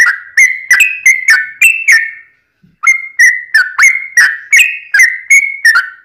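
Yellow-vented bulbul (trucukan) singing a fast run of loud, sharp, whistled notes, about three a second, with a brief pause a little after two seconds in before the run picks up again.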